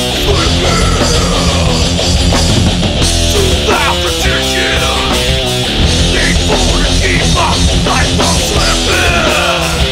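Loud punk-metal rock band playing an instrumental passage: distorted electric guitars over bass and drums, with a lead line sliding up and down in pitch through the middle.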